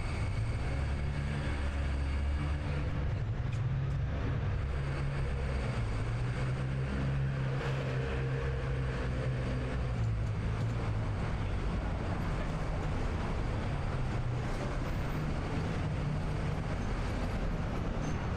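City street traffic, with a vehicle engine's low rumble strongest through the first half and easing after about ten seconds, over steady street noise.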